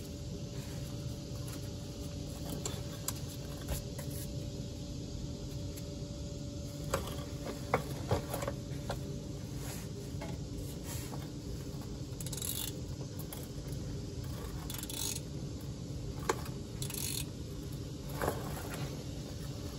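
Socket ratchet clicking in short runs as a differential plug with a fresh crush washer is run in and snugged tight by hand, with scattered metal clicks and taps over a steady low background hum.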